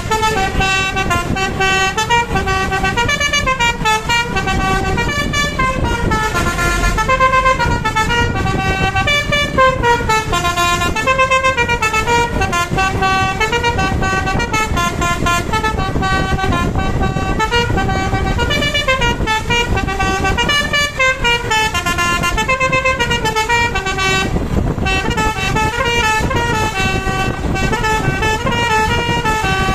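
A bus's telolet basuri multi-tone musical horn playing a long melody. Several pitched notes sound together and step up and down in quick runs, over the low rumble of the bus.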